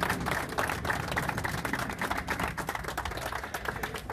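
A small group applauding, with quick, irregular handclaps.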